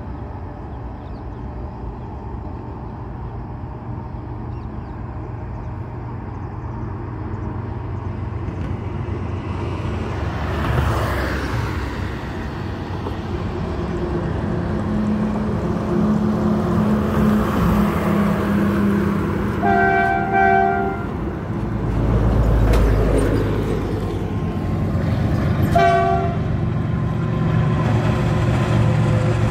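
Train crossing a steel truss railway bridge, its low rumble growing steadily louder as it comes on. The locomotive's horn sounds for about a second some twenty seconds in, and again briefly about six seconds later.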